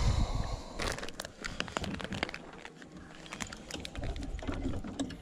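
Rustling handling noise close to the microphone: crinkling with many irregular sharp clicks and a few low thumps.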